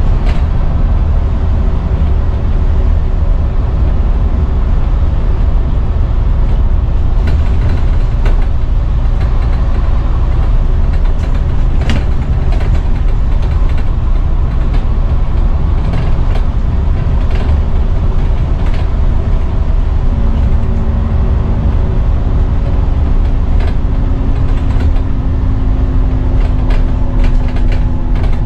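Scania N230UD double-decker bus under way, heard from inside the passenger saloon: a steady low engine and road rumble with interior rattles and clicks. A steady drone comes in about twenty seconds in.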